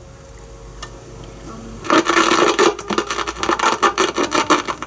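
Toshiba RT-5160S boombox's speakers giving loud, irregular scratchy crackle as a front-panel control knob is turned, starting about two seconds in after a faint hum and a single click. It is noise from the potentiometers, which still need cleaning.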